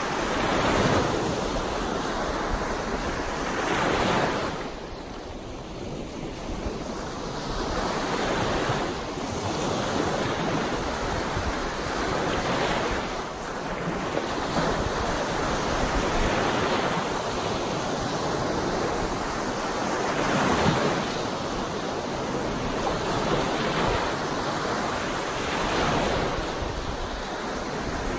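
Lake Superior waves breaking and washing up a beach in choppy, wind-driven surf, the rush of water swelling and easing every few seconds.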